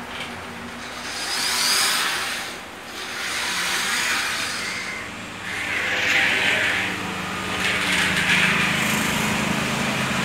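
A child's toy car rolled back and forth along a hard countertop: several swells of rolling, rubbing noise, each a second or two long.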